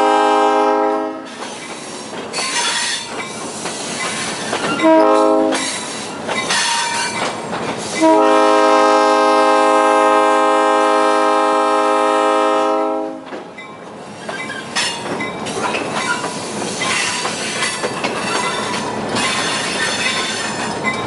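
Locomotive air horn sounding a chord: a blast that ends about a second in, a short blast around five seconds, then a long blast of about five seconds, the close of the long-long-short-long pattern sounded for a road crossing. Between and after the blasts comes the rumble and faint wheel squeal of the train rolling slowly on the spur track.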